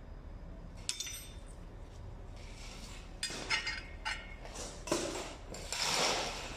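Metal pieces being handled: a ringing clink about a second in, then several clinks and knocks with short metallic ringing, and a longer scrape near the end.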